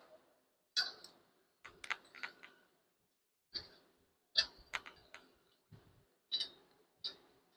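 Scattered light clicks and knocks of metal clamps being set and tightened on steel pipe on a welding table, about ten short, sharp ones at irregular intervals.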